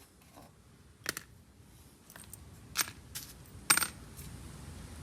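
Several sharp metallic clinks and taps of small metal parts or tools, loudest near the end.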